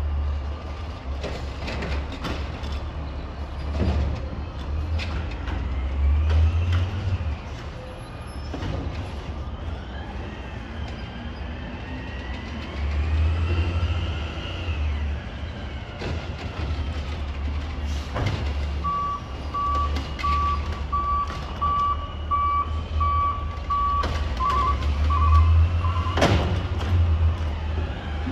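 Autocar automated side-loader garbage truck running: a steady deep diesel rumble with a whine that rises and falls as the engine revs, and scattered knocks. About two-thirds in, its reverse alarm beeps steadily for several seconds, and a sharp bang comes near the end.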